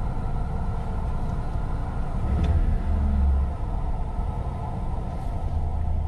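1993 Ford Econoline van's engine idling in park, heard from inside the cab: a steady low rumble that swells for about a second midway. It is running rough and rich, a fault the owner narrows down to the throttle position sensor.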